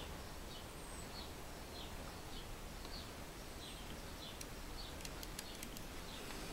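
A small bird chirping faintly in short, high, falling chirps about twice a second, over steady room hiss. A few quiet ticks come about five seconds in.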